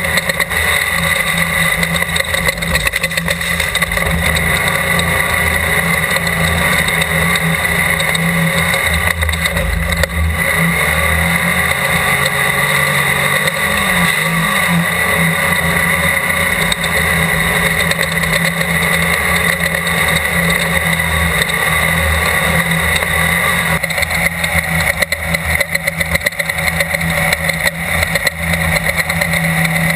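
Off-road desert race car's engine running hard at speed: a loud, continuous drone whose tone shifts a little about three-quarters of the way through.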